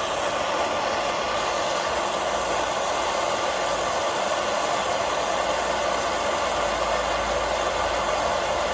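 Jeweller's gas soldering torch burning with a steady hiss as the flame heats a metal join for soldering.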